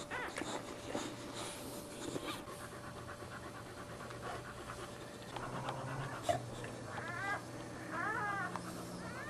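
A dog panting during whelping, with a few short high whimpers that rise and fall about seven, eight and nine seconds in.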